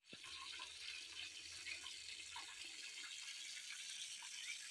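Faint outdoor ambience: a steady hiss with a few faint short chirps, one rising near the end.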